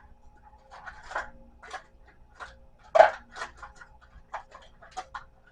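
Pens and pencils being handled and set into a desk organizer: a run of light clicks and clatters, loudest about three seconds in, over a faint steady hum.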